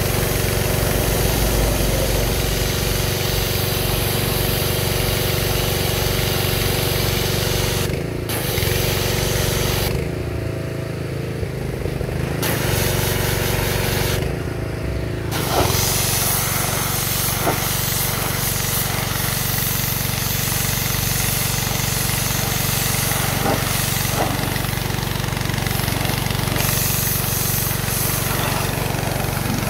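Engine-driven pressure washer running steadily, with the jet from its lance hissing against a metal road sign. The spray cuts out briefly a few times near the middle as the trigger is let go, while the engine keeps running.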